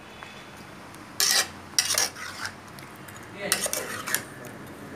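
A metal spatula scrapes and clanks against an aluminium pot as fried, battered egg pieces are stirred through chilli sauce. It comes in three short bouts, with the middle one about two seconds in.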